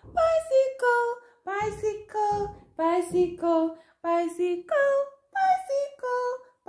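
A woman singing a simple, unaccompanied sing-song tune in short held notes with small pauses between them, a soothing song for a fussy baby.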